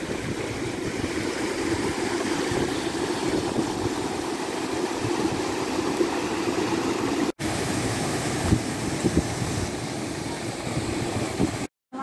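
Stream water rushing steadily over small rock cascades into pools. There is a brief break about seven seconds in, and the sound cuts out just before the end.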